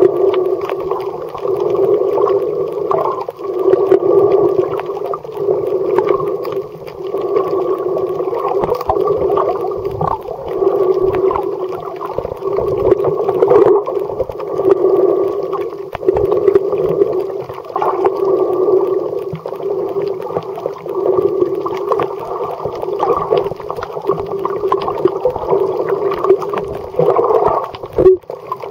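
Muffled underwater noise from a camera submerged in the sea: a dense, muffled water rush that swells and fades every couple of seconds as the camera moves through the water.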